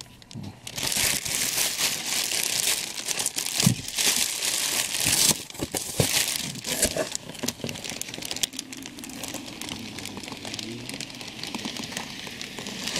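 Clear plastic bag crinkling and rustling as hands pull it off a boxed statue. It is loudest and busiest for the first several seconds, then thins to lighter handling.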